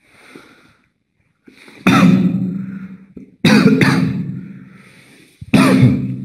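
A man coughing hard: three loud coughing fits about a second and a half apart, the middle one a double cough, each dying away.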